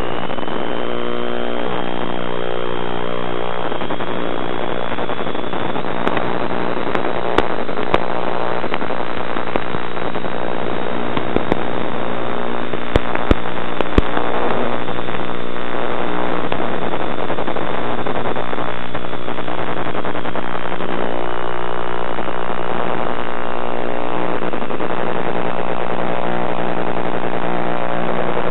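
Electric motor and propeller of a radio-controlled model plane, heard from its onboard camera: a steady high whine that climbs in pitch and later eases back down, over a noisy rush. A few sharp knocks come in the middle.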